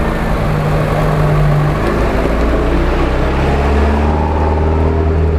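Engines of a UAZ-469 and a GAZ-66 off-road truck running, a steady drone whose pitch drops about two seconds in and grows deeper and stronger about four seconds in.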